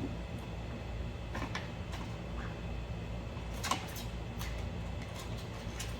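Scattered light taps and clicks from small birds moving about, sharpest about two thirds of the way through, over a steady low hum.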